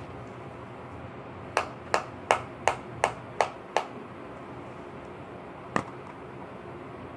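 Seven quick sharp taps, about three a second, then a single tap a couple of seconds later: a can of Grizzly Straight dip being packed with finger flicks on its lid.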